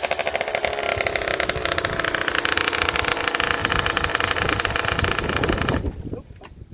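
1993 Aprilia RS50's 50cc two-stroke engine dropping in pitch as the bike slows and pulls up, then running steadily at idle. The engine stops suddenly near the end.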